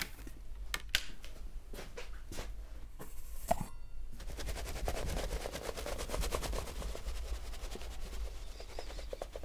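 Scattered sharp clicks and knocks of an old wooden large-format camera being handled, the loudest about three and a half seconds in. From about four seconds in, a fast, even run of ticks follows.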